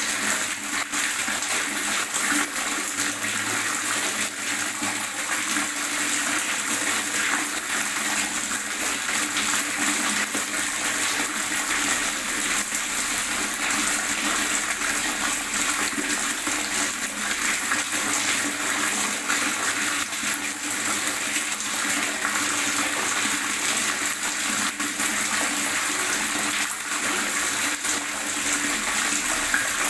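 Water gurgling and splashing steadily, a continuous bubbling rush with no pauses.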